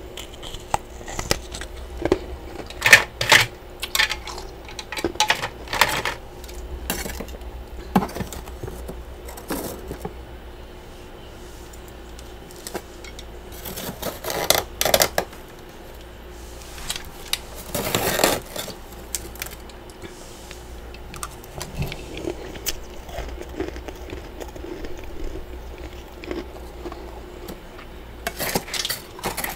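Freezer frost and ice chunks crunching and clinking close to the microphone, in irregular bursts: a cluster a few seconds in, more around the middle and near the end, with faint crackling between.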